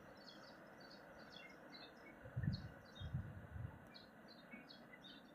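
Songbirds chirping faintly with many short high calls over a soft outdoor hiss; a few low dull thumps come about two and a half and three to three and a half seconds in.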